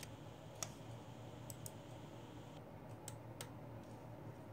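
A handful of faint, sharp clicks at uneven intervals over a low steady hum of room tone.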